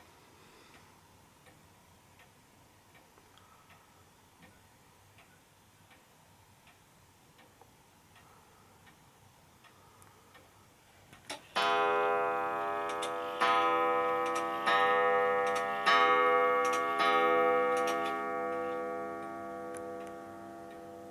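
Two-weight Vienna regulator wall clock ticking softly, then striking five times about halfway through, each stroke ringing and fading before the next.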